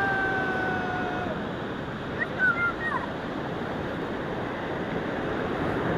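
Ocean surf washing onto a sandy beach, a steady rushing. A held pitched call fades out about a second in, and a few short high calls come about two and a half seconds in.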